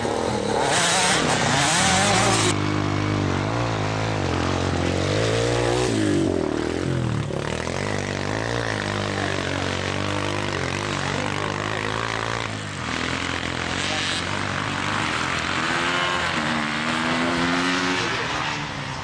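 Motocross bike engines revving as the riders race, the pitch rising and falling again and again with the throttle.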